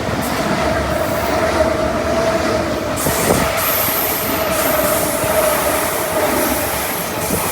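Electric passenger train running through the station without stopping: continuous wheel-on-rail rumble and clatter under a steady high whine, with a hissing rush building about three seconds in.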